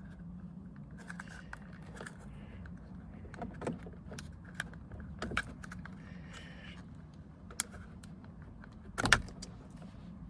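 Scattered small clicks and taps of hands working the plastic wiring connectors on a van's door window-switch panel, over a steady low hum, with one sharp, louder click about nine seconds in as a connector comes apart.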